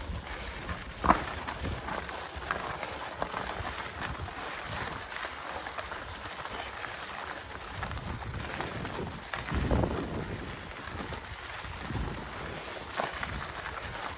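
Mountain bike riding up a dirt trail: tyre and trail noise with wind buffeting the microphone and scattered knocks and clicks from the bike, plus a louder rush about ten seconds in.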